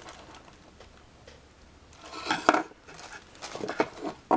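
Clicks and light metallic clinks from handling a metal card-holder wallet and a leather money-clip wallet on a wooden desk. After a quiet first two seconds they come in two short clusters, the sharpest about two and a half seconds in.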